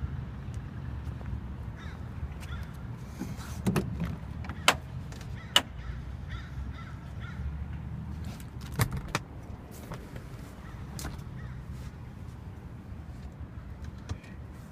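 Driver's door of a 1974 Alfa Romeo GTV being opened and handled: several sharp clicks and clunks from the latch and handle, mostly between about four and nine seconds in, over a steady low rumble.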